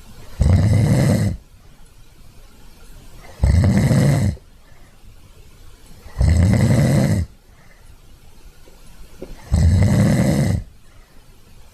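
Snoring: four loud snores, each about a second long, about every three seconds.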